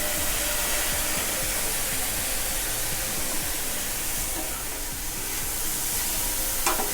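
Steady sizzling hiss of a pan of sautéed onion, grated carrot and beans with spices, simmering after a little water has been poured in to cook the vegetables.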